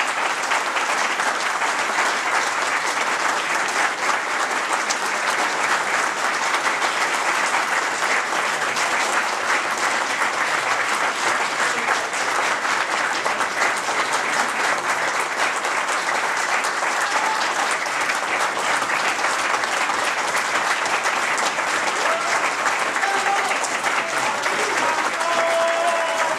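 Audience applauding steadily in a hall, sustained clapping throughout. Near the end a few voices rise over the clapping.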